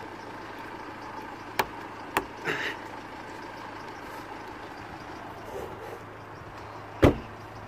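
A few short sharp clicks and knocks of car trim being handled and refitted, the loudest one near the end, over a steady low hum.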